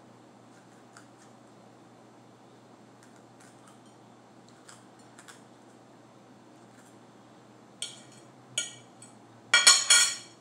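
A metal knife on a plate: faint light scrapes and taps, two sharper clinks about eight seconds in, then a louder ringing clatter of knife against plate near the end.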